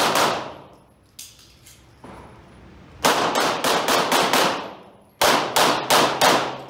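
Pistol fired in fast strings on an indoor range, each shot ringing on: one shot at the start, a string of about six a little under halfway in, and about four more near the end.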